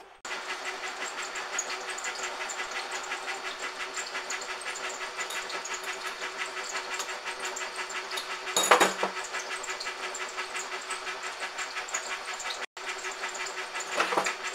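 A metal lathe starts up just after the beginning and runs steadily with a fast, even mechanical clatter and hum. Two louder short bursts, about nine seconds in and again near the end, come as the twist drill in the tailstock is fed into the centre of the hub to bore it out.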